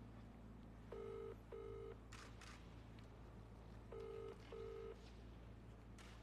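British double-ring ringback tone from a mobile phone on speaker: two double rings, each a pair of short burrs, about three seconds apart, while the call waits to be answered.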